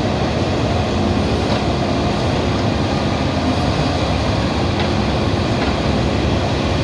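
Diesel engine of a JCB backhoe loader running steadily, a continuous loud mechanical drone.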